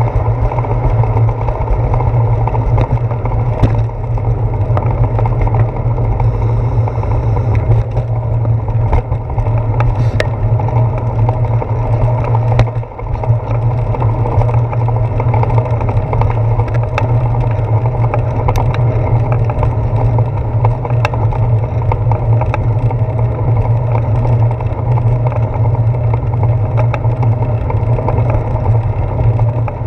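Steady wind and riding rumble from a bicycle, picked up by a handlebar-mounted GoPro Hero 4 as it rolls along a wet concrete sidewalk, with a few sharp knocks scattered through, as from bumps and pavement joints.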